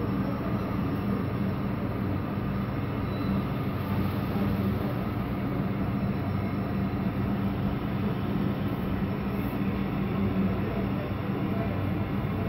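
Model freight train pulled by an ES44AC, an SD60 and two SD70ACe model diesel locomotives running slowly at yard speed, with a steady low diesel engine hum.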